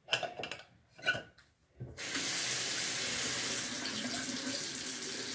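Bathroom sink tap turned on about two seconds in, water then running steadily into the basin.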